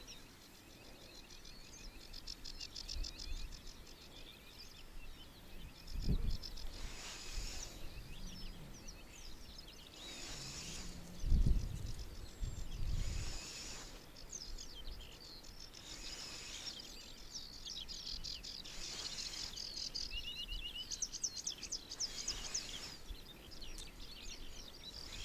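Small songbirds singing and chirping, with several overlapping trills, against a light outdoor noise background. There are a few low thumps, the strongest a little before the middle.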